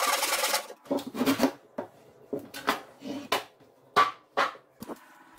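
Crosscut hand saw rasping through a block of pine in fast strokes, stopping about half a second in. Then a series of separate wooden knocks and clatters as the cut piece and the saw are handled and set down on a wooden table.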